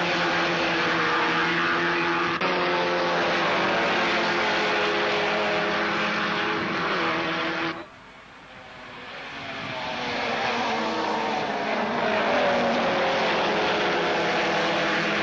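Citroën AX Sport race cars' small four-cylinder engines running at high revs as a pack laps the circuit, several engine notes overlapping. About halfway through the sound cuts out suddenly, then builds back up over a few seconds as cars approach.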